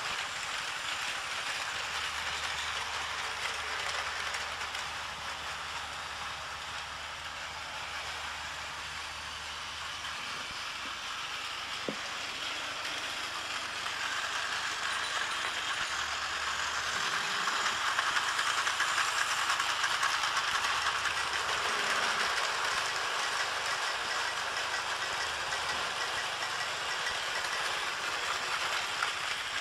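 Battery-powered Tomy Plarail toy trains, among them an E4 Series Shinkansen Max, running on plastic track: a steady whirring and rattling of their small motors and wheels, getting louder from about halfway through.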